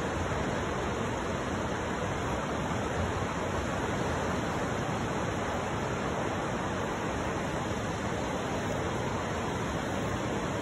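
River water rushing steadily past over rapids.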